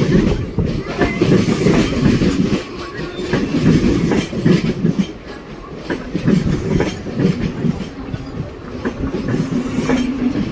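Mumbai suburban EMU local train coaches rolling past close by, wheels clattering over the rail joints in repeated clickety-clack bursts. A steady hum joins in near the end.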